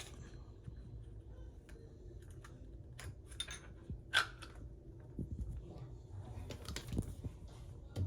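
Hands handling a hair dryer stand and its anti-slip mat on a counter: scattered light clicks, taps and rubbing, with a sharper knock about four seconds in and another near seven seconds.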